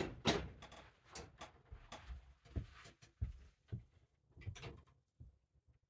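A door being handled indoors: two sharp clunks at the start, then a run of irregular knocks and thumps.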